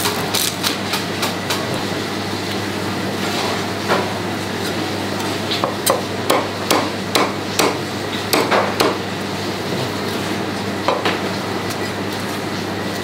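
Cleaver chopping through crispy pork belly and striking a plastic cutting board, in irregular runs of sharp chops, quickest between about six and nine seconds in. A steady low hum runs underneath.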